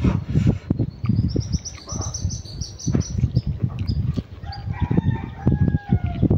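Close-up slurping and chewing of Maggi noodles, with irregular wet smacks. A small bird calls in a quick run of high chirps, and a rooster crows once near the end.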